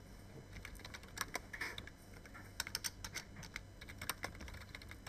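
Computer keyboard typing: faint, irregular clusters of light key clicks as a short word is typed, over a low steady hum.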